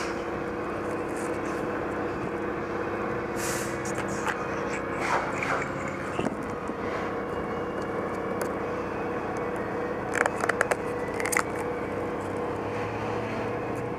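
Protective plastic film crinkling in a few short bursts as it is peeled off a car's side mirror, the loudest about five seconds in and again around ten to eleven seconds in. A steady mechanical hum runs underneath.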